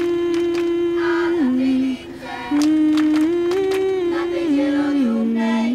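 Music: a solo female voice singing a slow, unaccompanied melody in long held notes that step between pitches, with a few light clicks.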